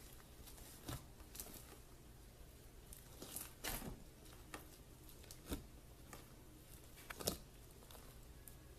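Slime being worked by hand, giving faint, irregular pops and crackles, with a sharper pop about seven seconds in.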